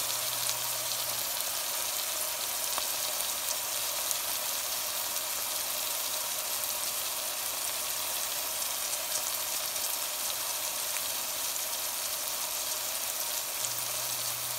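Chopped red onions and curry leaves frying in oil in a steel wok: a steady sizzle with small scattered crackles.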